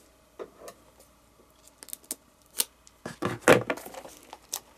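Packaging of a small mystery-mini figure being handled and opened: scattered light clicks and rustles, busiest and loudest about three seconds in.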